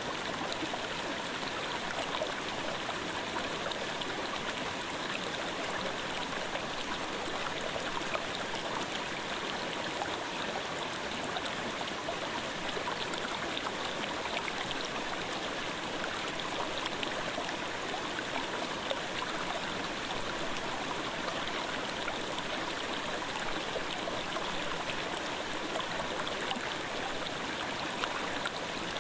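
Clear mountain stream babbling steadily over rocks: an even, unbroken rush of flowing water.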